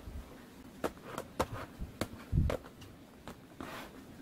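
Hands handling clear plastic lidded salad containers: a run of light plastic clicks and taps, with a duller knock about two and a half seconds in as a container is set down or shifted.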